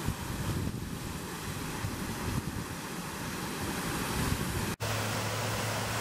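Steady rush of a waterfall, with wind gusting on the microphone. A little under five seconds in, the sound cuts off abruptly and resumes as a steadier, more even hiss with a low hum under it.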